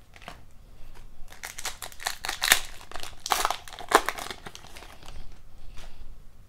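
A foil hockey-card pack being torn open and its wrapper crinkled: a dense run of crackling from about a second in until about four and a half seconds, then fainter handling of the cards.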